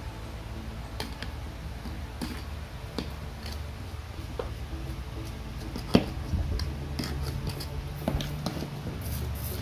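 Small garden trowel scraping and scooping soil in a plastic tub and tipping it into a plastic jar: scattered scrapes and clicks, the loudest a sharp knock about six seconds in.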